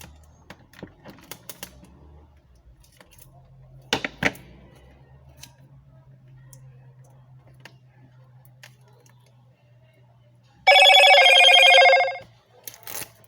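Clear sticky tape being handled and pressed down, faint crinkles and small clicks, with two sharper clicks about four seconds in. Near the end a loud, steady electronic-sounding tone rings for about a second and a half and cuts off.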